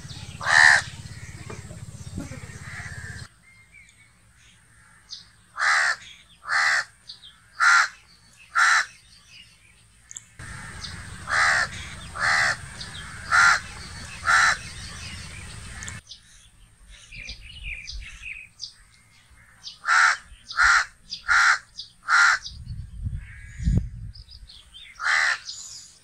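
House crow cawing in bouts of about four caws, roughly one a second, with short pauses between the bouts.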